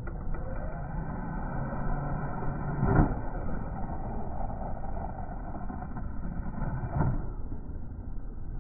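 Rlaarlo ROG1 RC truck driving, muffled, with two heavy thumps: one about three seconds in and another near seven seconds.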